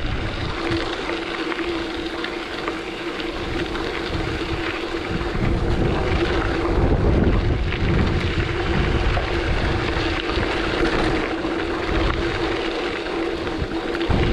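Gusty wind rumble on the microphone over a steady mid-pitched hum, with no distinct events.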